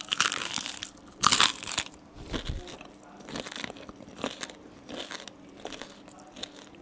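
Crisp cornflake crust of a fried tiger prawn crunching as it is bitten and chewed. The loudest crunch comes about a second in, followed by lighter crunches roughly once a second.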